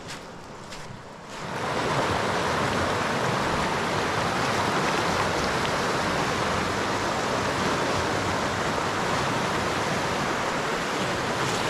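Snowy River rushing steadily, its water noise coming in suddenly about a second and a half in, after a couple of footsteps.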